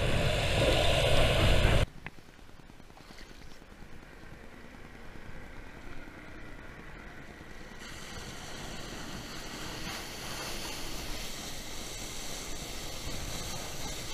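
Loud underwater rushing and bubbling that cuts off abruptly about two seconds in, followed by a much quieter, steady hiss of a flyboard's water jets that grows gradually and turns brighter and hissier about eight seconds in.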